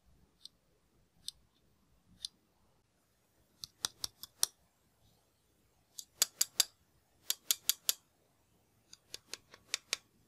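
Fingernail tapping on a Xiaomi Roidmi 3S car charger's plastic body and metal tip. A few faint single clicks come first, then from about four seconds in there are quick clusters of four to six sharp clicks.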